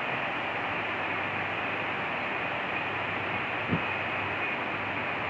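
Whitewater of the Arkansas River rushing past in a steady, even noise. A brief low thump comes a little past halfway.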